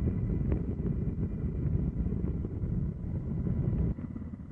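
Steady low rumble of wind buffeting the microphone mixed with engine drone, with a faint steady high whine above it; the rumble drops abruptly about four seconds in.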